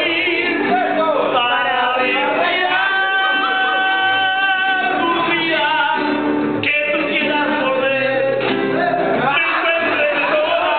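Mariachi band playing live with a male singer, guitars under the voice; a long held note a few seconds in.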